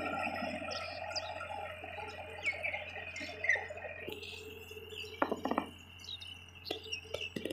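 Birds chirping in short, repeated calls over a steady hum of tones that fades out about halfway through; a few brief knocks come in the second half.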